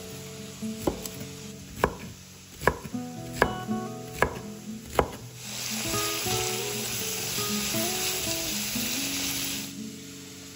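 Knife chopping on a cutting board, six strikes a little under a second apart. About halfway through, food starts sizzling in hot oil; the sizzle lasts about four seconds and cuts off suddenly. Soft guitar background music plays underneath.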